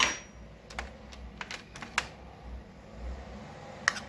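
Small fluted metal tartlet tins clicking and clattering against a metal baking tray as they are handled and set down: a scattering of sharp clicks, the loudest at the start and near the end.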